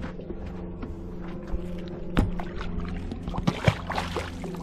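A large catfish splashing into the lake as it is let go over the side of the boat, with a few sharp knocks just before the splash, over a steady low hum.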